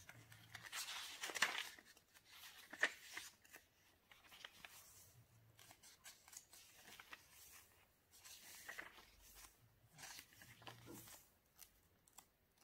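Paper pages of a handmade notebook being turned and handled: soft rustling with scattered short flicks and crinkles, the sharpest about one and a half and three seconds in.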